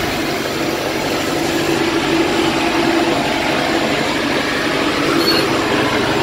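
Engine of the vehicle towing a trailer loaded with manure, running steadily while driving, with a loud, even noise of travel over it.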